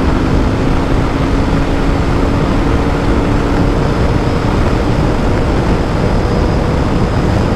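Royal Enfield Interceptor 650's parallel-twin engine running steadily at high revs in fifth gear, at about 150 km/h, under heavy wind rush on the microphone.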